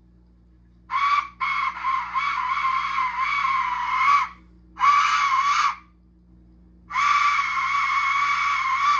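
Aztec death whistle blown in four screeching, scream-like blasts with a wavering pitch: a short one about a second in, a long one of about three seconds, a shorter one around five seconds, and another long one from about seven seconds.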